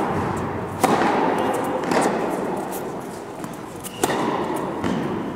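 Tennis rackets striking the ball in a rally: a serve about a second in, a return about a second later, and another shot near four seconds, each a sharp pop that echoes around the indoor hall.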